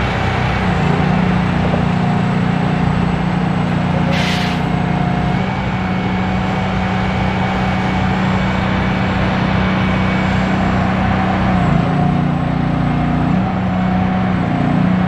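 Heavy diesel engine of a shed-hauling truck running steadily at a constant speed, an even loud drone, with a brief hiss about four seconds in.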